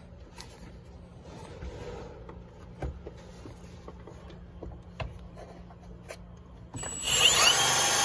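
Faint clicks and handling noise of tools and parts, then about seven seconds in a cordless power ratchet starts up loudly, its motor whine rising and then holding steady as it runs a bolt in.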